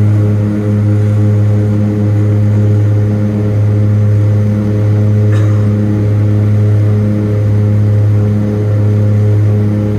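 Cabin drone of a DHC-6 Twin Otter's two Pratt & Whitney PT6A turboprops and their propellers: a loud, steady low hum with a slow, regular throb. A faint short click about halfway through.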